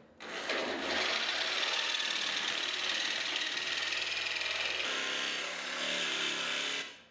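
Electric jigsaw cutting through sheet steel: a loud, steady buzz of the blade sawing the metal. It starts about half a second in, shifts slightly in tone around five seconds, and stops abruptly just before the end.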